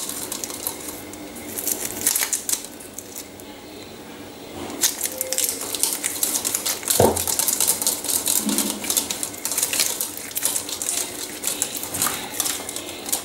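Metal wire whisk stirring a runny mixture in a ceramic bowl, its wires clicking and scraping rapidly against the bowl, with a brief quieter spell about three seconds in and a single knock about seven seconds in.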